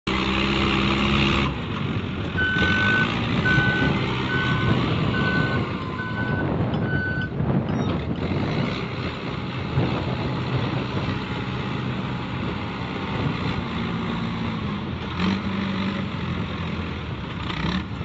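XCMG WZ30-25 backhoe loader's Yuchai diesel engine running under work, with the machine's reversing alarm beeping six times in a row, starting a couple of seconds in.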